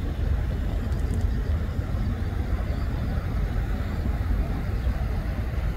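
Steady low rumble of a moving vehicle, with road and wind noise.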